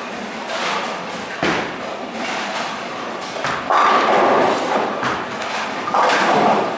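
Bowling alley lanes: a sharp knock about a second and a half in, then loud clattering of pins and pinsetter machinery for about a second near the middle and again near the end.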